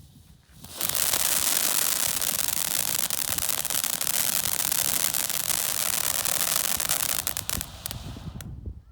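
Sizzler firework fountain burning: a loud, steady hiss of spraying sparks starts about a second in. Near the end it breaks into rapid crackling pops, then dies down.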